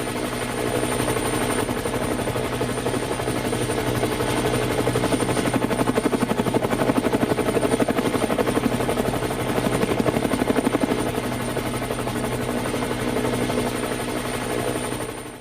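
Helicopter rotor blades chopping in a rapid, steady beat, with a thin high whine above. It swells in the middle and fades out at the very end.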